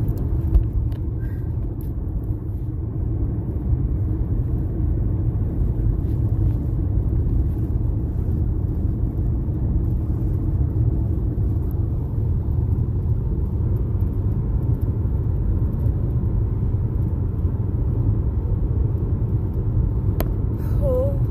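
Steady low rumble of a car heard from inside its cabin, with one brief knock about half a second in.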